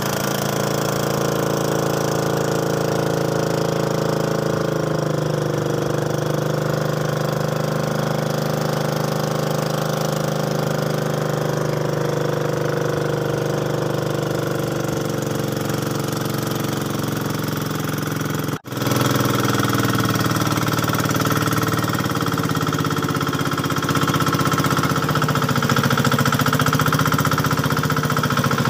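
Small motorboat's engine running steadily under way, with a slight waver in pitch. It drops out for an instant about two-thirds of the way through, then carries on a little louder.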